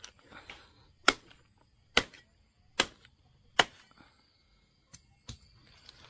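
A large knife chopping into a cassava stem: four sharp chops a little under a second apart, starting about a second in, then a lighter one near the end.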